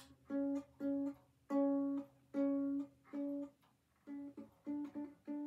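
Flight Designer Series Orchid ukulele, one string plucked over and over while it is tuned by turning its geared tuning peg. About five ringing single notes come first, then a quicker run of shorter plucks near the end.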